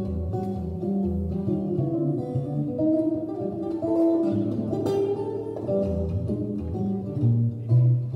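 Archtop guitar played solo, with bass notes moving under chords and melody notes.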